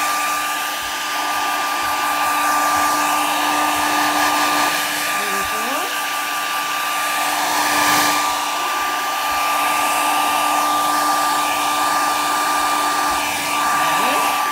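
Handheld hair dryer running steadily, a constant motor whine over the rush of blown air, drying a coat of chalk paint on a wooden tray.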